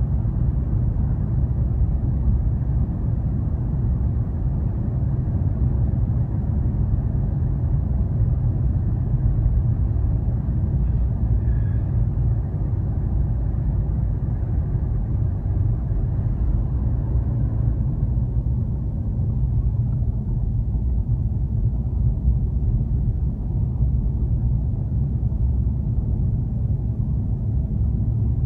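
Steady low rumble of a front-wheel-drive car driving on an ice-covered road, engine and tyre noise heard from inside the cabin.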